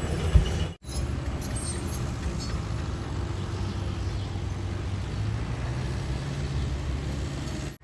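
Heavy diesel construction machinery running steadily with a low engine drone. There is a sharp knock about half a second in, then a brief break in the sound.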